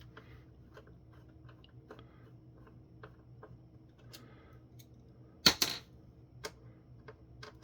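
Faint clicks and taps of a plastic phone housing and small screws being handled, with a loud sharp knock about five and a half seconds in, followed closely by a second.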